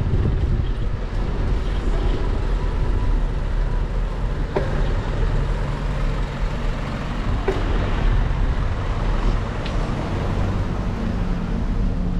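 Motor vehicles running at close range: a box truck's engine as it is passed, then a car's engine drawing near, over a steady low rumble.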